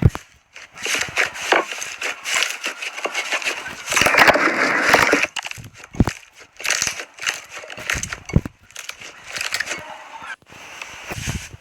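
Slime being squeezed and pressed by hand, giving irregular crackling and popping clicks, with a dense stretch of crackling about four seconds in.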